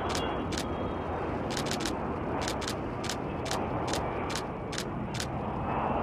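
Steady rushing of the Stratolaunch carrier aircraft's six turbofan jet engines as it flies low past, overlaid by sharp camera shutter clicks, about two a second and sometimes in quick runs.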